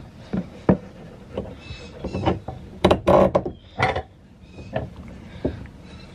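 Heavy red battery power cable being handled and worked into place by hand: a run of irregular knocks, rubs and scuffs against the car body, the loudest cluster about three seconds in.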